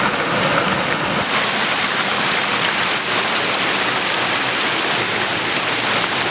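Creek water rushing over a small rock ledge in a steady wash, with boots sloshing through ankle-deep water.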